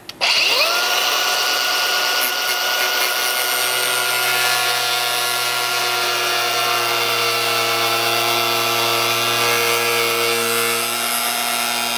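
Pneumatic air cutoff tool spinning up with a short rising whine. It then runs at a steady high-pitched whine while its small abrasive disc cuts through the plastic bumper fascia, and cuts off suddenly at the end.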